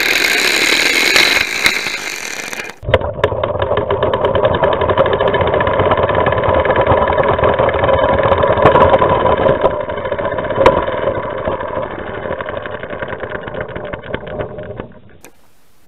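Air Zero toy car's compressed-air piston engine running, heard from a camera riding on the car: a loud hiss for about three seconds, then a fast, even rattling chatter. The chatter fades as the air pressure runs down and stops shortly before the end.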